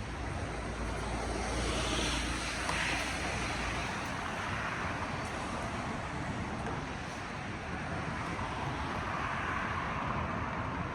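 City street traffic: a steady rush of passing vehicles and tyre noise, swelling around two to three seconds in and again near the end, with a low rumble that fades out about four seconds in.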